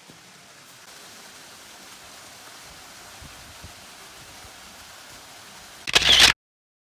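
Steady rushing noise, then about six seconds in a brief loud, rough burst that cuts off abruptly into silence.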